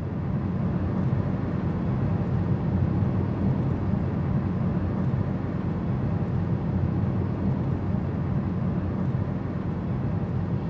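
A steady low rumble of noise with no clear tone, holding even throughout.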